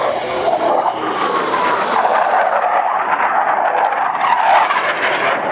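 Blue Angels F/A-18 Hornet jets making a low pass, a loud, steady jet noise with a whining tone that falls in pitch about a second in as they go by.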